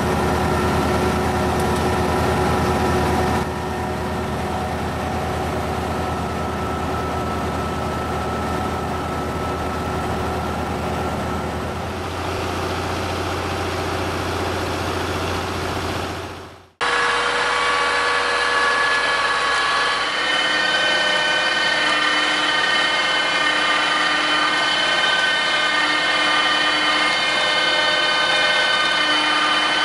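Tractor engine and a trailed carrot harvester running steadily, a continuous machine hum. About two-thirds of the way through, the sound cuts to a cabbage harvesting machine running, with a low tone that comes and goes every couple of seconds.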